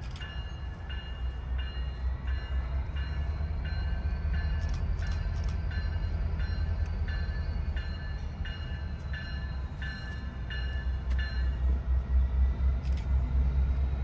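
Railroad crossing bell ringing in an even rhythm of about two strokes a second, stopping about 11 seconds in, over the low rumble of a passing train that grows louder near the end.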